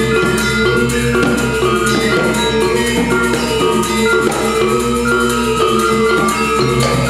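Balinese gamelan playing at a steady, full level: bronze-keyed metallophones ring in dense overlapping notes over a low sustained tone, with a kendang drum.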